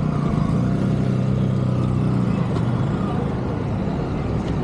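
A motor vehicle's engine running at a steady speed, with road and wind noise.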